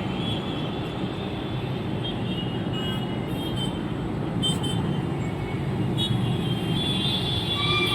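Steady urban traffic noise: a continuous rumble and hiss of passing road vehicles with no single event standing out.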